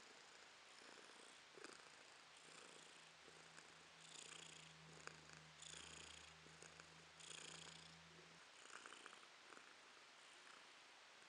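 Domestic cat purring quietly while being stroked, in a steady cycle that swells about every second and a half with its breaths.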